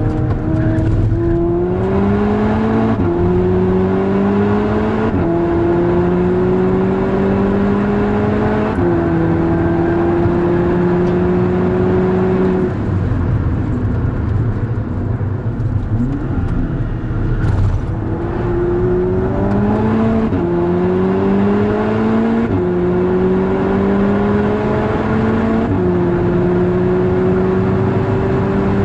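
Volkswagen Golf R (Mk6) 2.0-litre turbocharged four-cylinder under hard acceleration on track, its note rising and dropping sharply at several quick upshifts. About halfway through the throttle comes off for a few seconds, then the engine pulls up through the gears again.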